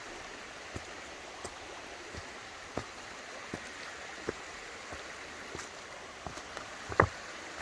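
Footsteps of a hiker climbing stone trail steps, a short knock roughly every 0.7 s over a steady rushing background. Near the end a louder knock comes from a loose step stone that moves underfoot.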